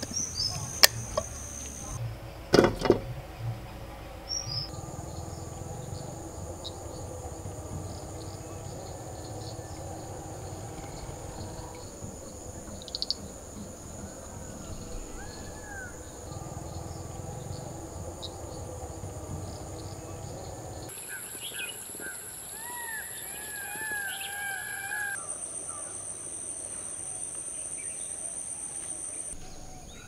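Crickets and other insects buzzing steadily at a high pitch, with birds chirping in short arched calls through the last third. Near the start come a few sharp clicks, from the wire clasp and glass lid of a swing-top jar.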